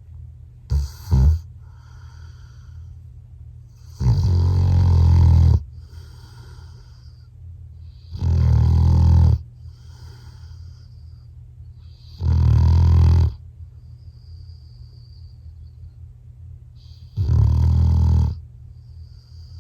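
A Labrador retriever snoring in its sleep: four loud snores, each a second or so long, about four seconds apart, with two brief snorts about a second in.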